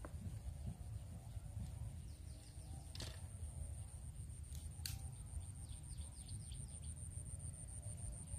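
Open-air ambience: a low, uneven rumble under a steady high-pitched whine, with faint bird chirps in quick falling runs twice and two sharp clicks about three and five seconds in.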